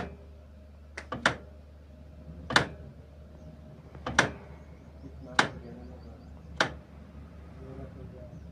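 Loud, sharp knocks, six or seven of them about a second or so apart, two of them in quick succession about a second in, stopping after about six and a half seconds, over a steady low hum.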